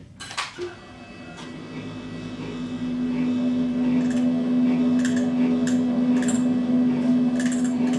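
Prepared hurdy-gurdy: after a couple of knocks, a steady drone on one pitch swells in over the first few seconds and then holds. Scattered sharp clicks sound over the drone in the second half.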